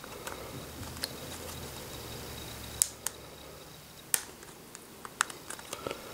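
Scattered small clicks and taps of a smartphone case being handled and pressed onto a BlackBerry Q10, a few sharper ones spaced about a second apart and a cluster of lighter ticks near the end.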